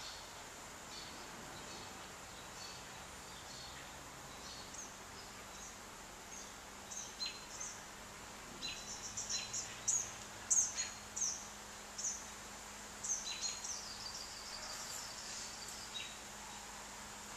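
Small birds chirping in short, high calls, a few at first and then in busy clusters through the middle and again near the end, over a steady outdoor background hiss.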